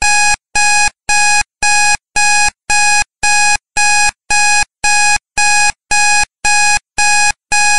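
Countdown timer's electronic alarm beeping as it reaches zero: a steady run of identical short beeps, about two a second.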